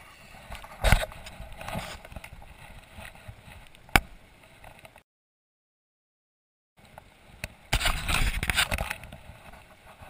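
Handling noises at the edge of a shallow river stream: a loud knock about a second in, a sharp click about four seconds in, and a burst of noisy splashing and rustling near the end. The sound cuts out completely for nearly two seconds midway.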